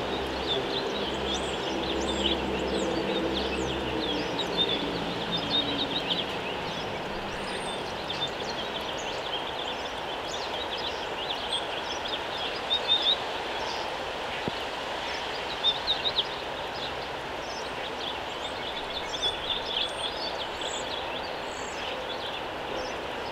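Backyard outdoor ambience full of short, high bird chirps and calls throughout, over a steady background hum. A low engine hum from a passing vehicle is heard at the start and fades out by about six seconds in, and a few louder sharp sounds stand out around the middle.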